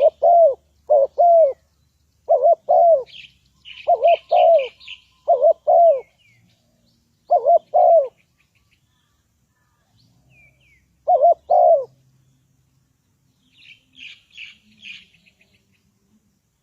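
Spotted dove cooing: loud, deep two-note coos, repeated in pairs every second or so, with a pause after about 8 s and one more pair near 11 s. Small birds chirp faintly in between and near the end.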